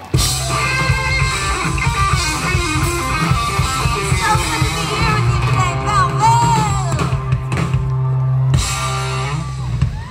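Loud rock-style band music with guitar and drum kit over a strong bass line. It cuts in abruptly at the start and stops near the end.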